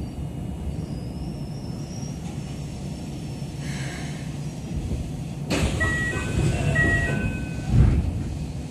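Keikyu 600 series commuter train heard from inside the car while running: a steady low rumble of wheels on track. About five and a half seconds in, a louder hiss sets in with a few short high tones, and a heavy thud comes near the end.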